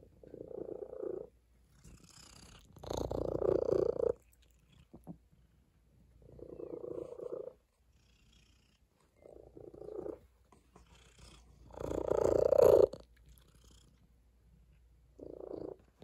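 Tabby cat purring in six separate bouts of about a second each, with short quiet gaps between them; the bouts about three seconds in and about twelve seconds in are the loudest.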